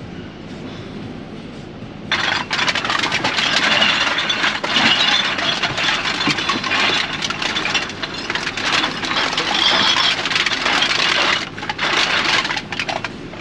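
About two seconds in, the rear car door opens and black plastic bin bags full of empty drink bottles and cans are hauled out, rustling loudly and clinking with many small clicks.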